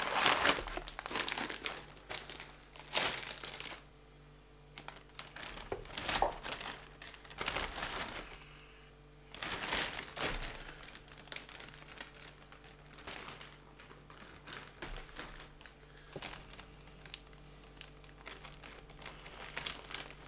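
Crinkling and rustling, coming and going irregularly, over a faint steady hum.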